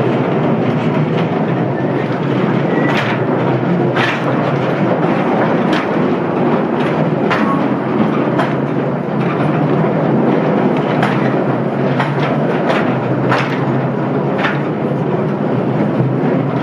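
Mine train rolling along its rails inside a narrow rock tunnel: a steady, loud rumble from the wagons, with irregular sharp metallic clacks and knocks from the wheels on the track.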